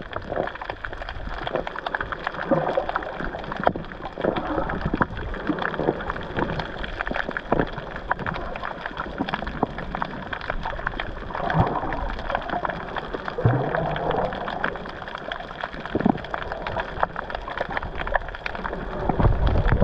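Water sloshing and gurgling around a GoPro sealed in its waterproof housing while snorkeling, muffled, with a constant run of small crackles and ticks.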